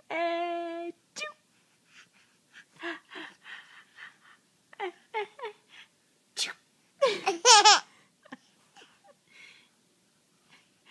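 A young baby laughing and squealing: a short held squeal at the start, scattered small giggles and babbles, then a louder burst of breathy laughter about seven seconds in.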